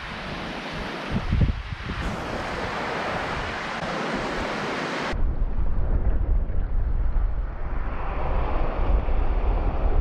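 Small sea waves breaking and washing up a sandy beach, a steady surf hiss. About five seconds in the sound cuts to another take in which low wind rumble on the microphone runs under the surf.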